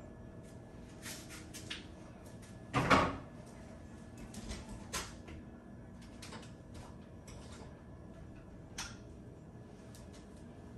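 Kitchen cupboard doors and items being handled: scattered knocks and clicks, with one louder clunk about three seconds in.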